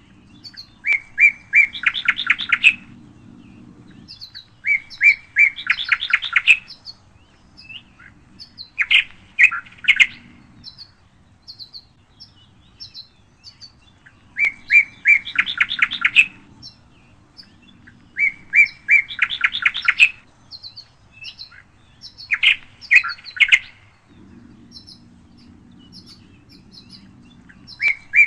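Songbirds singing. One bird repeats a short song about every four seconds: a few clear notes, then a fast trill. Between its songs come short, high chirps.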